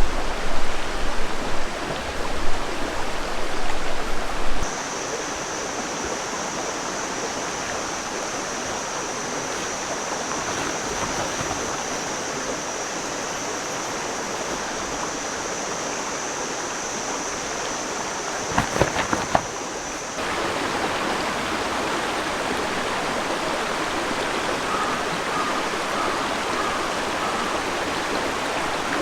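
River water rushing steadily. A steady high-pitched whine sits over it from about five seconds in until about twenty seconds, with low rumbling in the first few seconds.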